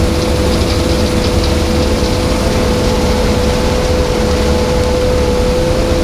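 Claas Lexion 650 combine harvester running steadily while harvesting rye: a constant low rumble with a steady whine over it.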